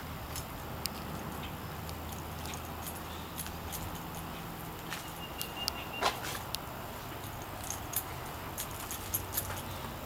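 Scattered light footsteps and small handling clicks over a steady low hum, with a brief thin high tone about five seconds in.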